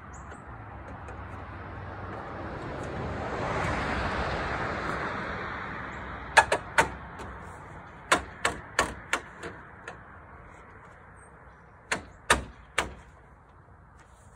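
Sharp plastic clicks and knocks as an aftermarket grille is pressed and snapped into place on the front of a Ford F-350: three quick ones about six seconds in, a run of about six between eight and ten seconds, and three more near twelve seconds. Before them a rush of background noise swells and fades, peaking about four seconds in.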